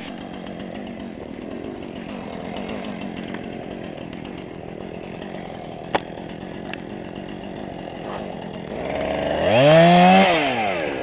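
Chainsaw engine running steadily at low speed, with a single sharp click about six seconds in; near the end it is revved up, its pitch rising and then falling back over about a second and a half.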